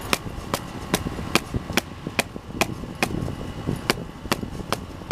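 A wet paintbrush tapped again and again against the toe of a boot to knock the water out of the bristles, making sharp, even taps about two and a half times a second.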